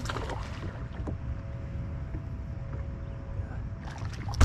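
Wind rumbling on the microphone aboard an open bass boat, with a faint steady hum from the electric trolling motor that fades out shortly before the end. A sharp knock comes right at the end.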